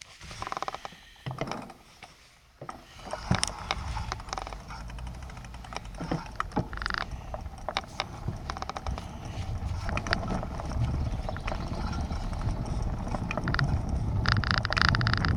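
Bicycle being ridden: a few knocks as it sets off, then tyre rumble over concrete and paving blocks that grows louder as it picks up speed, with small rattles and clicks from the frame and camera mount. Near the end the rattle turns dense and fast as the tyres run over the block paving.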